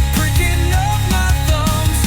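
Instrumental rock music with heavy bass and drums and a gliding lead melody, and no singing.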